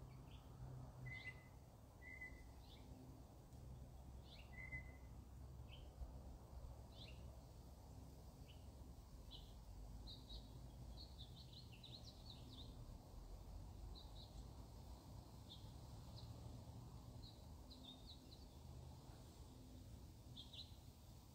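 Faint bird chirps, short high calls scattered irregularly throughout, over a low steady hum.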